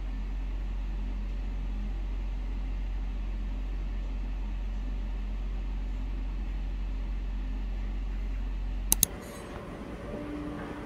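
Steady low motor hum with an even hiss in a bathtub room. About nine seconds in, two sharp clicks; the hum stops and quieter room sound with faint clatter follows.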